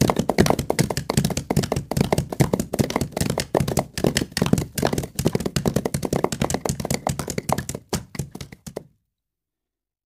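Hooves of galloping horses striking the ground in a quick, irregular drumming of many beats, thinning out and fading before stopping about nine seconds in.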